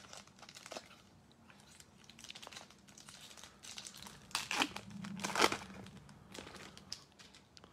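Plastic wrapper of a Topps baseball card pack being torn open and crinkled by hand. There are scattered crackles, and the loudest tearing comes a little past halfway through.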